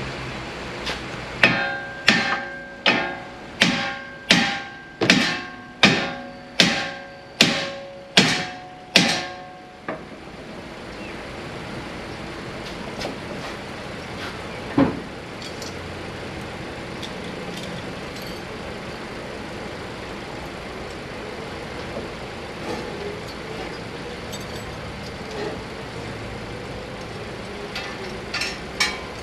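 A hammer striking a Honda Civic's steering knuckle about a dozen times, roughly one blow every 0.7 s, each blow ringing metallically, to knock the ball joint stud loose. After about ten seconds the blows stop, and a single knock comes a few seconds later.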